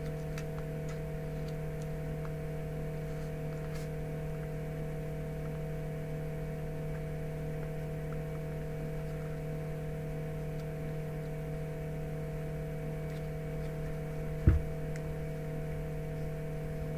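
Steady electrical hum, with a few faint small clicks and one short low thump near the end.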